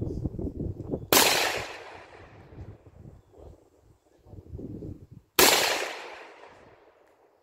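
Two rifle shots about four seconds apart, one a little over a second in and one near the end. Each is a sharp crack followed by a fading echo.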